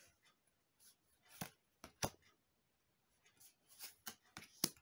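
Magic: The Gathering trading cards being slid off a hand-held stack and flipped to the back: a handful of quiet, sharp flicks and rustles of card stock, the sharpest just before the end.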